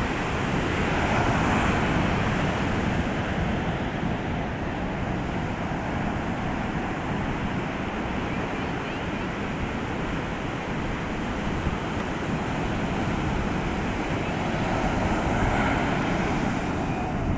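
Atlantic surf breaking on a sandy beach at spring high tide: a continuous wash of waves that swells louder about a second in and again near the end. Wind buffets the microphone underneath.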